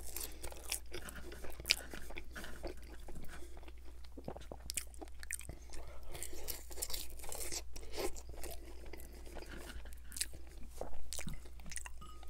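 A person chewing French fries close to the microphone, with many small crunches and bites scattered irregularly, over a steady low hum.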